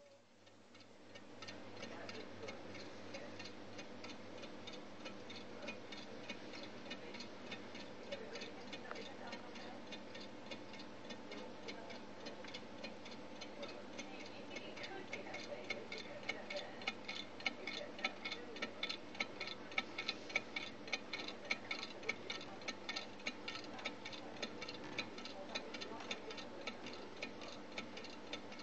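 Homemade low-temperature-difference Stirling engine running, its linkages and crank giving an even, rapid ticking a few times a second. The ticks grow louder about halfway through.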